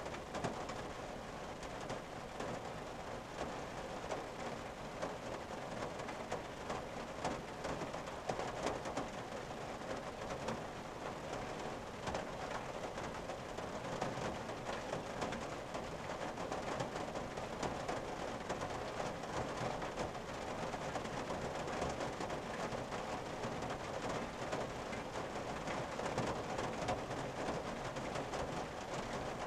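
Steady rain on a car's roof and windshield, heard from inside the cabin: a dense, even hiss made of countless small drop taps.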